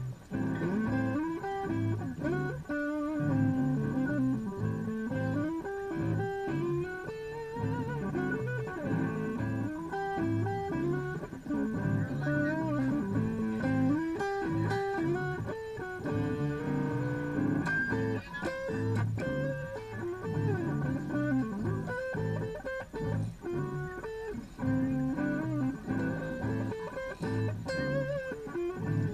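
A band jamming live: an electric guitar plays a lead with bent and wavering notes over a low, steady rhythmic accompaniment.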